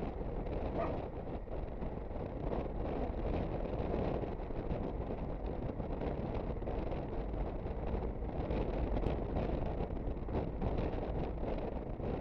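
Wind on the microphone and the running engine of an Aprilia Sportcity Cube 250 scooter while riding: a deep, steady noise without a clear pitch.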